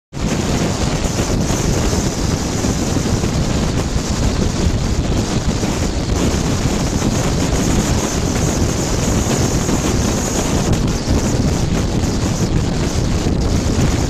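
Wind buffeting the microphone: a steady, loud rushing noise with no breaks.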